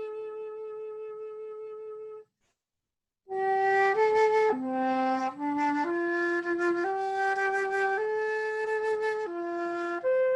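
Slow solo flute melody: a long held note that stops about two seconds in, a brief silence, then a line of single notes stepping up and down in pitch.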